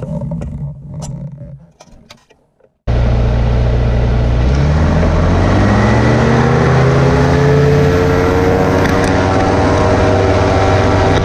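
Powered parachute's Rotax 912 engine coming in loud and abruptly about three seconds in, after a quieter stretch with a few clicks. It runs up to takeoff power, its pitch rising over a few seconds and then holding steady for the takeoff roll through the grass.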